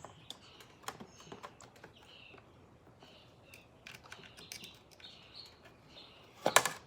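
Small clicks and taps of a MacBook's bottom plate being eased off by hand, with a louder clatter about six and a half seconds in as the plate comes free. Birds chirp faintly.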